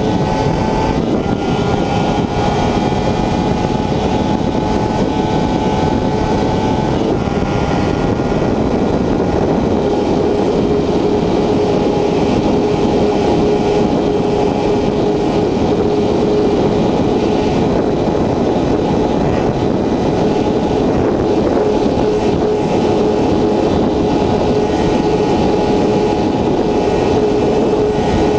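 Honda CBR 1000RR's inline-four engine running at high revs under hard acceleration, with heavy wind rush at close to 300 km/h. The note climbs slowly and changes with gear shifts about a second in and again around seven seconds in. It then holds one steady high note.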